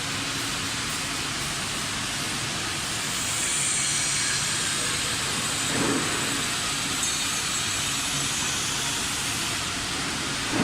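Steady machine noise: an even rush of air with a faint low hum, joined about three seconds in by a higher hiss, with a light knock near the middle and another at the end.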